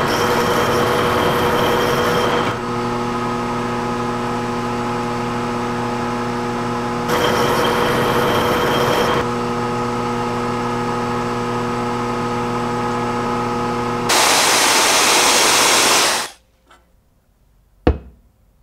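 Metal lathe running steadily while turning a small brass part, a motor hum with several held tones that steps up and down in level a few times. About fourteen seconds in, a louder rushing noise takes over for two seconds, then cuts off abruptly, followed by one sharp click.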